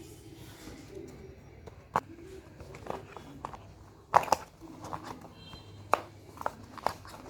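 Scattered clicks and knocks of things being handled during an unboxing, with the loudest knock a little after four seconds in and a quick cluster of smaller ones near the end.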